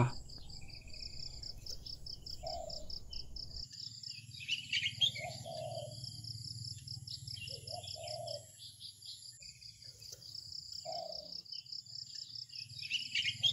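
Crickets trilling steadily in the background, with a few bird chirps about five seconds in and again near the end, over a faint low hum.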